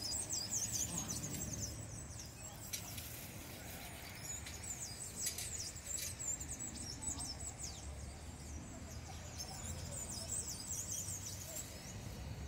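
A flock of birds roosting in a tree, many chirping and singing at once in a dense run of quick, high chirps, over a steady low background rumble.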